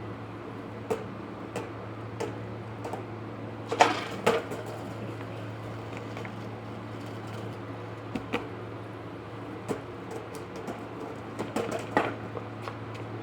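Scattered knocks and clacks from a skateboard being ridden, the loudest a pair about four seconds in and another cluster near the end, over a steady low hum.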